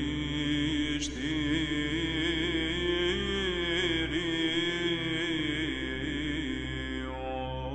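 Byzantine chant: a solo chanter singing a slow, ornamented melisma over a steady held drone (ison).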